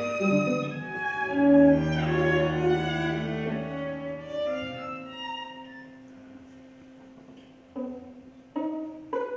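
String quartet playing live classical music. A cello holds a long low note under the violins, the music grows quieter, then three short accented chords come near the end.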